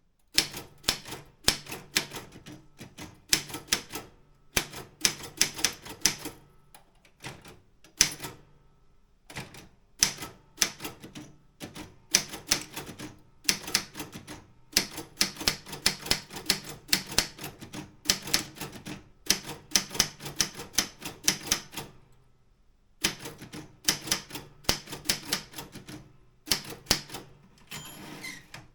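Optima M16 manual typewriter being typed on: quick runs of sharp key clacks with short breaks between words and a pause of about a second roughly two-thirds through.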